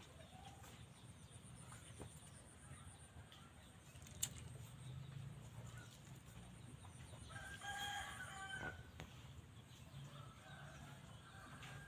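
A rooster crowing once, faint and lasting about a second and a half, about two-thirds of the way through, with a weaker call near the end. A single sharp click sounds about a third of the way in.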